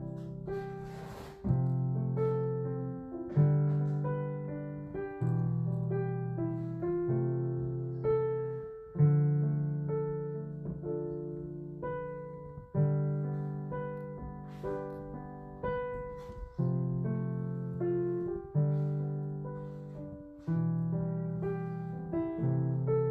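Background piano music: a slow piece of held notes and chords, each struck and then fading, with new notes about every one to two seconds.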